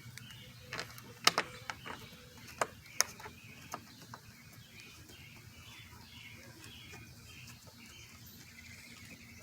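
Several light, sharp clicks and taps in the first few seconds as small metal windscreen bolts are fitted by hand into the fairing mounts. Faint bird chirps repeat in the background throughout.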